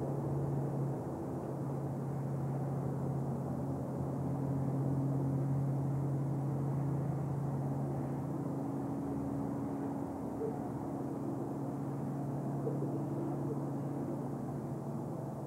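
Steady low rumble of traffic heard from above, with a low steady hum that fades after about ten seconds.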